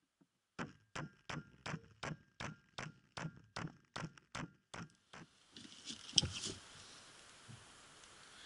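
Claw hammer driving a nail into the wooden floor boards: about a dozen quick, even blows, close to three a second, with the nail ringing faintly. The blows stop about five seconds in, followed by one sharp knock and a steady rustling hiss.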